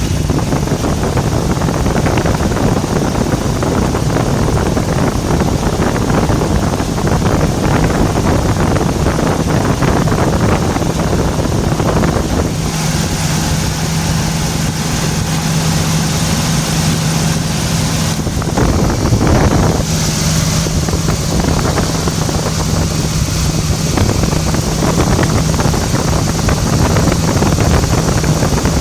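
1994 Toyota T100 pickup's engine idling with the hood open while its spark plug wires are sprayed with water, a test to make a chafed ignition wire arc and the engine misfire. The idle sounds rough at first and settles into a steadier hum about halfway through.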